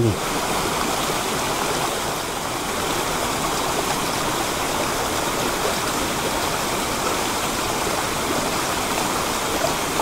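Steady rush of a mountain stream pouring over a small waterfall into a rocky pool and rapids.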